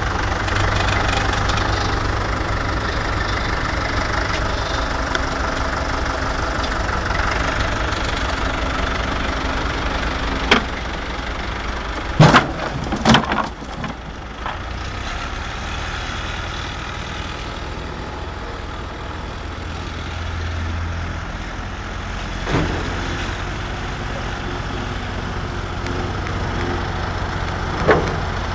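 Tractor diesel engine running steadily at idle, with a few sharp knocks of wooden pallets dropping and clattering, the loudest two about twelve and thirteen seconds in.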